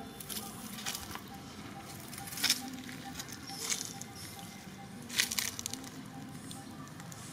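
Dry fallen leaves rustling and crackling in about four short bursts as macaques shift and grab at each other on leaf-strewn ground, the loudest bursts about two and a half and five seconds in.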